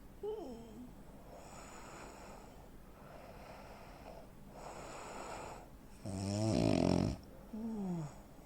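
A man's heavy snoring, the snoring of a sleep apnea sufferer: faint noisy breaths, a short falling snort near the start, then one loud snore about six seconds in, followed by a brief falling snort.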